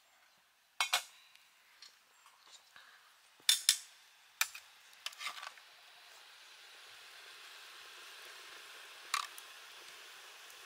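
A metal spoon clinking against metal cooking pots and a metal plate as food is dished out: several sharp clinks, two close together, in the first half and one more near the end. From about halfway a steady soft hiss sets in.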